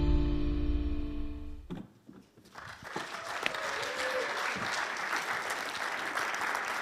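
Intro music on a held chord fading out, then after a short silence a congregation applauding steadily.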